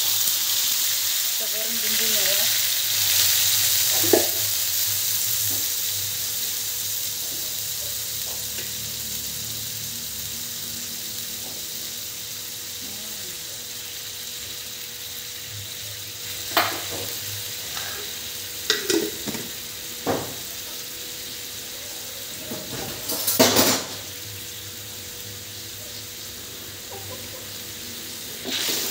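Blended spice paste sizzling hard as it hits hot oil in an aluminium wok, the sizzle slowly dying down over the following seconds. Past the middle come a few sharp knocks of a metal ladle against the wok, and stirring starts near the end.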